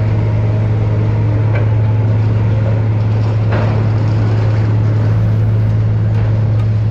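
Hyster forklift's engine running with a steady low drone as it carries a stack of lumber away.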